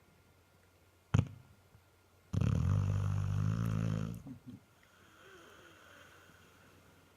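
Labrador retriever snoring in its sleep: a short snort about a second in, then one long snore lasting about two seconds, followed by a soft breath out.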